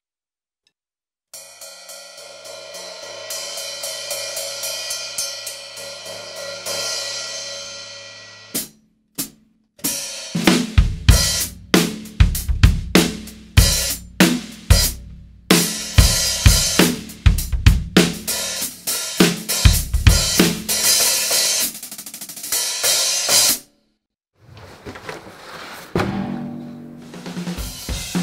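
Cracked cymbals on a drum kit, played to hear their damaged sound. A fast run of strokes on a cymbal swells up and rings for several seconds, then come a couple of single hits. Then a groove on the kit, with bass drum, snare, hi-hat and cymbals, cuts off suddenly about three-quarters of the way through.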